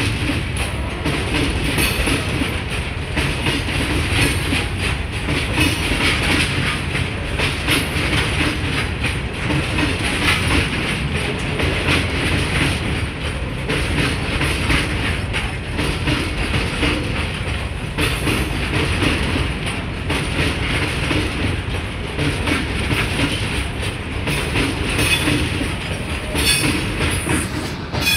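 BCNA covered freight wagons rolling slowly past at close range, their steel wheels clattering over the rail joints in a steady, uneven run of clicks over a continuous rumble.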